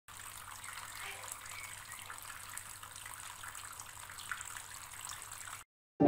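Small homemade plastic-bottle fountain running: a thin stream of water falls from the bottle's spout into a cup of water, making a steady trickling splash with a faint low hum underneath. It cuts off abruptly just before the end.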